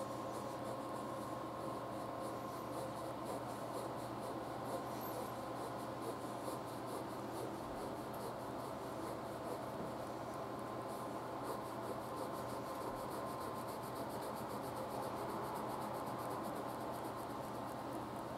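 Ballpoint pen scratching on paper in rapid repeated strokes, drawing close-set hatching lines in one direction.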